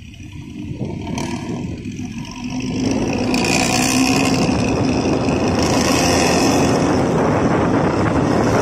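Intercity bus pulling away under acceleration, its diesel engine running through a deep 'ngorok' (snoring) exhaust. About three seconds in, a loud steady rush of engine and road noise builds and holds.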